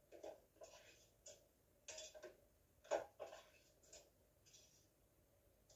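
Faint, irregular clicks, knocks and brief rustles, the sharpest about three seconds in: dishes and utensils being handled at a kitchen counter.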